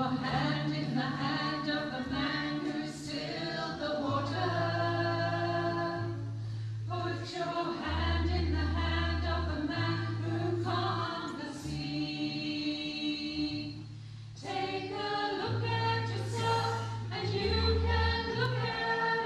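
A small live band playing a song: women singing together into microphones over electric guitar and a bass line of low held notes that change every second or two.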